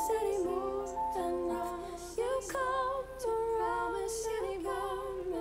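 Song with several female voices singing held notes in close harmony, with little instrument beneath.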